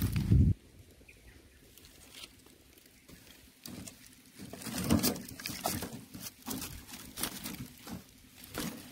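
Dry firewood sticks and dried fronds being handled and stacked into a wire-mesh cage: scattered rustling, with light knocks of wood on wood and wire, loudest around the middle. A loud low rumble fills the first half-second and then stops.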